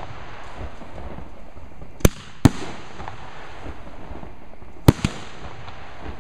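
Aerial fireworks going off: two pairs of sharp bangs, about two and five seconds in, the bangs in each pair a fraction of a second apart, each trailing off briefly.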